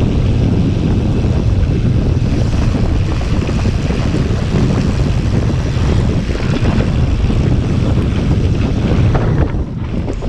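Wind buffeting a GoPro's microphone as a mountain bike moves fast along a trail, a loud, steady rumble that dips briefly near the end.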